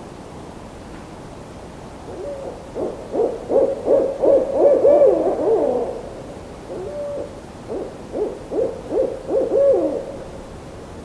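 An owl hooting in two bouts of quick, wavering hoots, the first starting about two seconds in and the second a little after the middle, over a steady background hiss.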